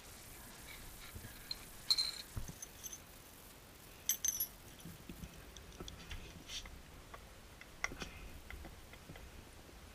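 Scattered clicks and light metallic clinks from hands handling an LED headlight bulb, its cardboard box and a pile of hand tools, loudest about two and four seconds in.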